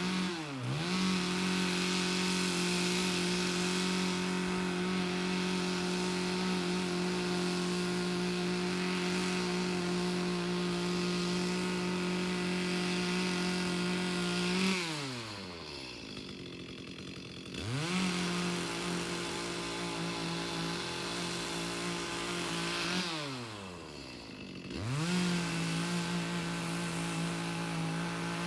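Chainsaw held at full throttle while cutting logs, in three long stretches. Between them the engine drops back to idle, once about halfway through and again near the end, before revving up again.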